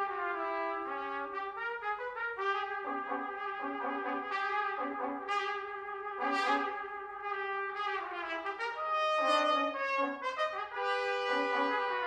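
Six-part brass ensemble of two C trumpets, two B-flat trumpets and two flugelhorns playing together: long held notes over short repeated notes in the lower parts.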